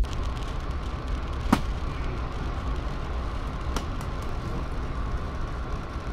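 Steady vehicle and traffic noise, a low rumble, with two sharp clicks a couple of seconds apart.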